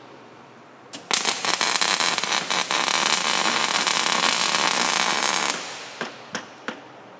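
MIG welding arc crackling as a bolt is welded onto a steel I-beam. It strikes about a second in with a sputter of sharp pops, settles into a steady dense crackle, and stops about five and a half seconds in, followed by a few short pops.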